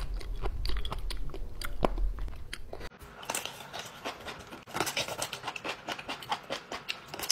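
Close-miked chewing of crunchy jellyfish: a stream of sharp crackling clicks over a low hum. About three seconds in the sound cuts abruptly to a quieter, denser run of wet, clicking chewing sounds without the hum.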